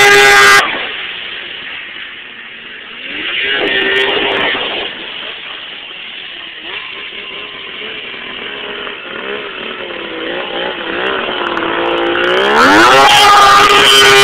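Snowmobile engine running at high revs while water skipping. It is loud at first, then drops to a quieter, wavering hum with a brief swell about four seconds in, and rises sharply in pitch about twelve seconds in to run loud again.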